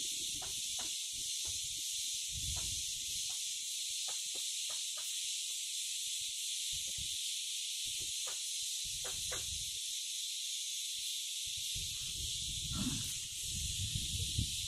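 Steady high-pitched chorus of insects, such as cicadas or crickets, at dusk. Under it are irregular low rumbles and knocks from the phone being moved and handled.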